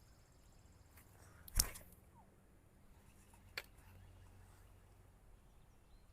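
Quiet outdoor ambience broken by two sharp knocks, a louder one about a second and a half in and a smaller one about two seconds later.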